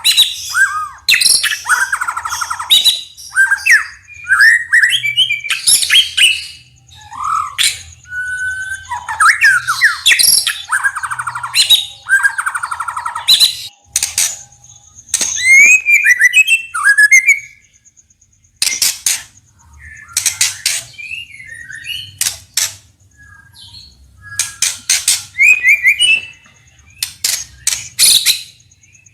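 White-rumped shama singing a fast, varied song of whistled phrases and glides, broken up by loud, harsh clicking rattles, in bursts with short pauses.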